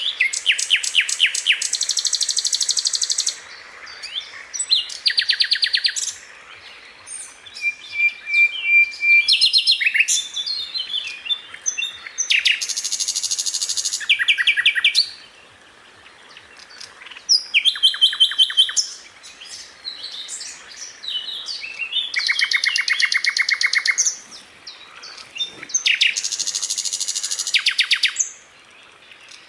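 Sikatan londo flycatcher singing: phrases of very fast, rapid-fire high notes (trilling rolls) about one to three seconds long, repeated with short pauses between them, with an occasional held whistled note.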